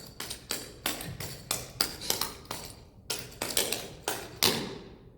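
Clog taps striking a hard floor in a quick, uneven run of sharp clicking strikes: a clogging step, the MacNamara with a turn, danced on the right foot.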